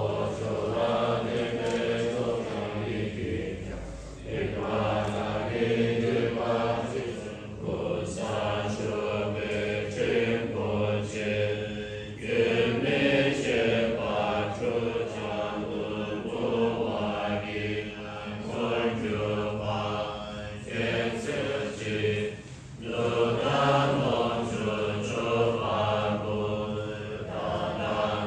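A group of devotees chanting Tibetan Buddhist prayers together in a steady, rhythmic recitation. There are short pauses for breath every few seconds.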